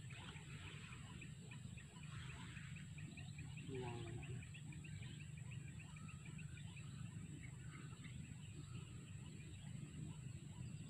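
Faint outdoor ambience with birds: a quick string of short high chirps, about three a second, and a single short lower call about four seconds in, over a steady low hum.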